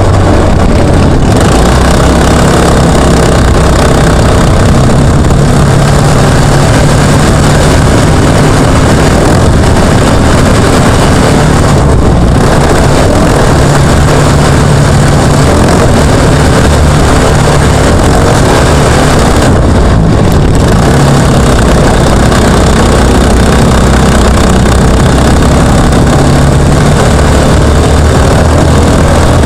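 Off-road junior trophy kart's engine running hard, heard up close from on board, very loud and overdriven. The engine note rises and falls as the kart accelerates and lifts off around the track.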